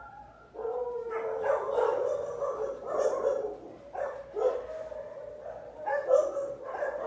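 A dog whining in long, drawn-out whines, about three in a row with short breaks between them.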